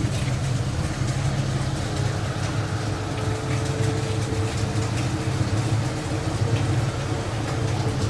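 Bus engine running with a low, steady rumble; a steady whine joins about halfway through.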